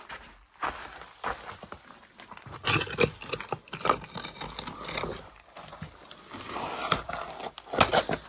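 Footsteps with scuffing and scraping, an irregular run of short knocks and rustles with no steady rhythm.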